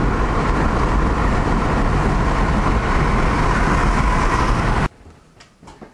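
Steady road and wind noise of a vehicle travelling at highway speed. It cuts off abruptly about five seconds in, leaving a much quieter room with a few faint clicks.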